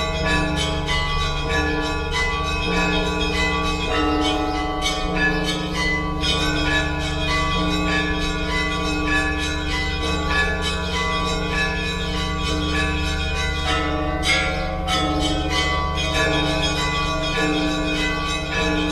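Russian Orthodox church bells ringing together: smaller bells struck in quick, overlapping strokes over the long, steady hum of a large bell.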